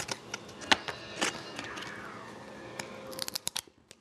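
Hockey trading cards being handled and flipped through right at the microphone: scattered sharp snaps and clicks, with a quick run of them about three seconds in.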